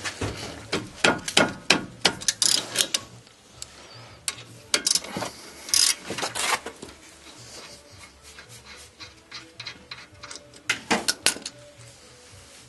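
Hand tools knocking and clicking on the rear brake caliper bolts as the caliper is being unbolted: short clusters of sharp clicks, in the first few seconds, around five to six seconds in, and again near the end.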